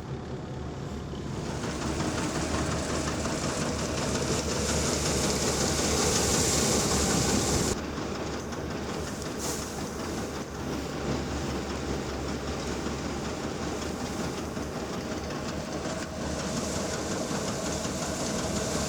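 Steady machinery noise with a constant low hum, changing abruptly about eight and sixteen seconds in.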